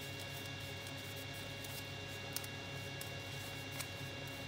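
A sheet of origami paper being handled and folded by hand: a few faint, crisp paper clicks, about halfway through and again near the end, over a steady electrical hum and hiss.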